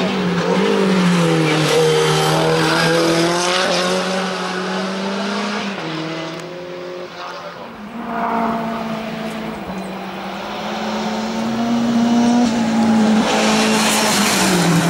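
Hill-climb race car engine at high revs, its pitch falling and rising as the driver shifts and lifts through the corners. It fades around the middle, then builds again as the car comes closer, loudest near the end with a rush of engine and tyre noise as it passes.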